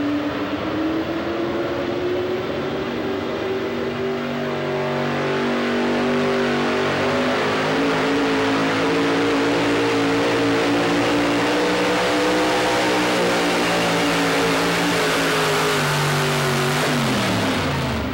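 Modified 4x4 pulling truck's engine running at high revs under full load while it drags a weight-transfer sled. The engine note climbs over the first few seconds, holds high and steady, then drops off sharply near the end as the pull ends.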